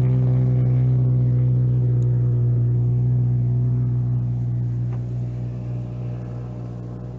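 The 521 cc, 45 hp petrol engine of a giant-scale RC Pitts Special biplane running at full power with its 40-inch propeller on the takeoff run. It holds a steady pitch, then fades somewhat from about halfway through as the plane climbs away.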